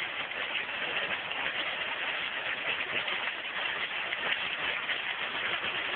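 Submerged arc welding head of a gantry welding machine working along a steel plate: a steady, finely crackling hiss with machine noise.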